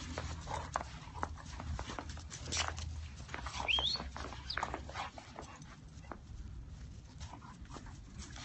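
Two young dogs play-wrestling in snow: paws scuffling and thudding, with two short high rising yelps a little before the middle.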